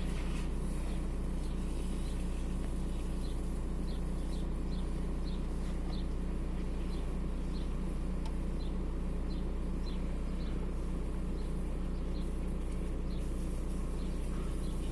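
Volkswagen Golf 4's 1.9 TDI (AXR) four-cylinder diesel engine idling steadily. The engine shakes, the sign of an intermittent cylinder 4 misfire (fault code 16688 / P0304).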